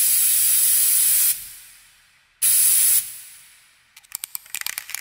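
Spray-paint can sound effect. There is a long hiss of spray, then a second, shorter burst about two and a half seconds in, and near the end a quick run of rattling clicks from the can being shaken.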